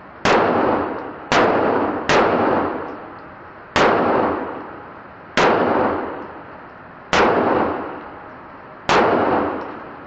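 Pistol fired seven times at an uneven pace, roughly one to two seconds between shots. Each shot rings and echoes for about a second in the enclosed indoor range.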